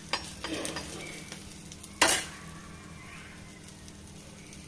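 Crushed ginger and black peppercorns sizzling in hot ghee in a pan, stirred slowly with a spoon, with small clicks of the spoon against the pan and one loud, sharp clatter about two seconds in.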